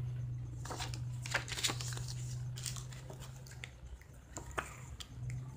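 Paper rustling and crinkling as a folded instruction leaflet and a printed card are handled, in scattered short rustles over a low steady hum.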